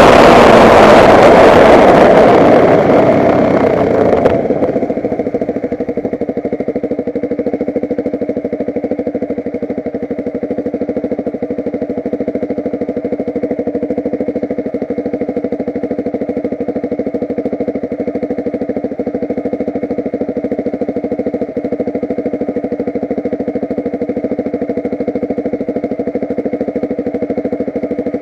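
Motocross bike engine running loud for the first four seconds or so, then dropping to a steady idle that holds for the rest of the time.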